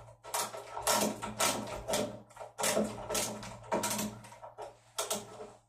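Screws being driven by hand into a door handle on a door: a series of short scraping, grinding strokes, one about every half second to a second.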